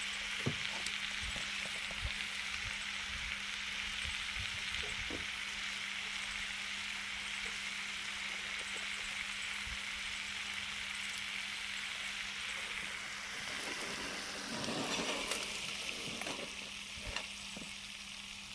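Food sizzling on a hot pan or grill plate after seasoning with salt, pepper and raw garlic: a steady hissing sizzle that eases off about two-thirds of the way through, with a few brief clatters near the end.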